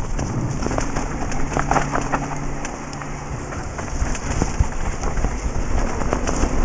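Mountain bike descending a rough, dry dirt trail: a steady crackling rush of tyres on dirt and loose gravel, with many small knocks and rattles from the bike.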